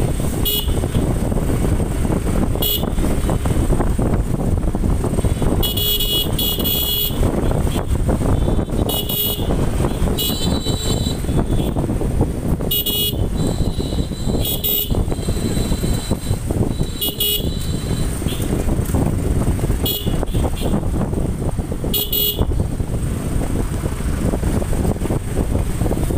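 Motorcycle riding along a road, with wind rushing over the microphone and a steady low engine and road rumble. About ten short horn toots come every two to three seconds, a couple of them in quick pairs.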